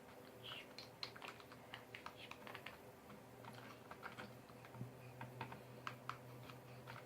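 Faint, irregular little clicks and squishes of a finger stirring glue and water in a bowl to start a slime.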